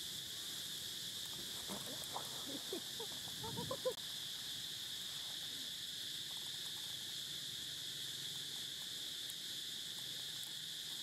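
Insects droning steadily at a high pitch, with a few short pitched calls about two to four seconds in, the loudest near the four-second mark.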